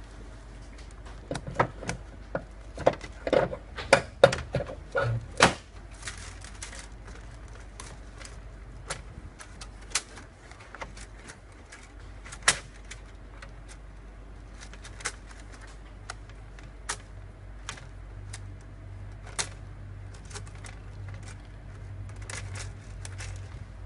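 Hard plastic clicks and knocks from a 3D-printer filament spool and its holder being handled as the filament is threaded: a quick flurry of clicks in the first few seconds, then scattered single clicks.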